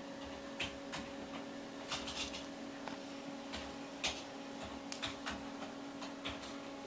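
Small Lhasa Apso dogs moving about on a rug: irregular light clicks and rustles, over a steady faint hum in the room.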